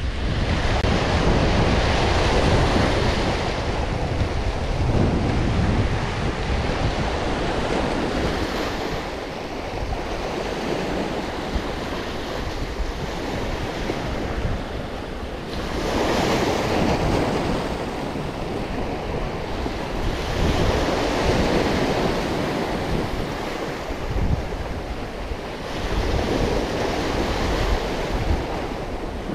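Small waves breaking and washing up a sandy beach and around rocks, swelling in surges every few seconds, with wind rumbling on the microphone.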